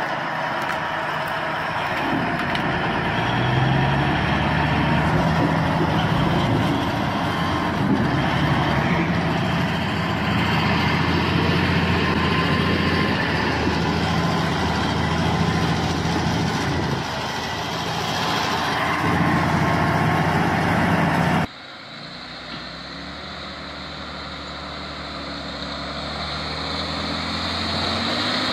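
Diesel engine of a Komatsu D355C crawler pipelayer working hard, its pitch rising and falling with engine speed. About three-quarters of the way through, it cuts off abruptly and gives way to a quieter truck engine that grows louder toward the end.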